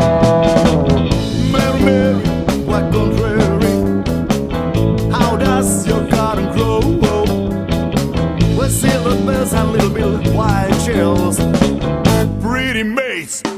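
Blues-rock band playing an instrumental break: an electric guitar lead with bent, wavering notes over bass and drums. Near the end the bass and drums drop out for about a second, leaving the lead line alone.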